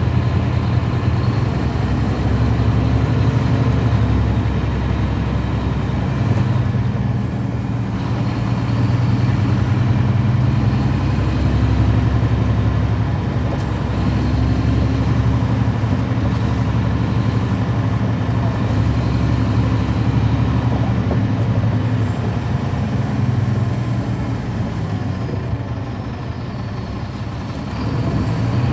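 Caterpillar C13 ACERT diesel engine of a 2009 NABI 416.15 transit bus running, heard from aboard the bus. Its level swells and eases in turns and drops off for a few seconds near the end.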